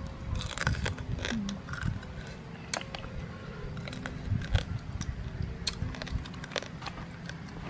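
Close-up eating sounds: chewing and smacking, with many sharp clicks and cracks as cooked shells are pulled apart by hand.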